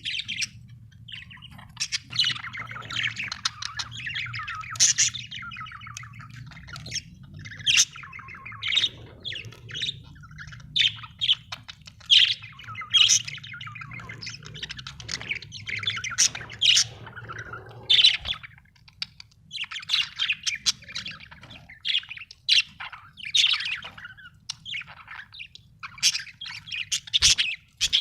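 Budgerigars chattering: continuous warbling and chirping broken every second or two by loud, sharp squawks, over a faint low steady hum.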